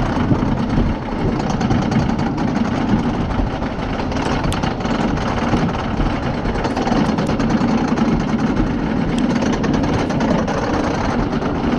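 Lightning Racer wooden roller coaster train running on its wooden track: a steady low rumble of the wheels, with many irregular clacks and rattles from the track and cars.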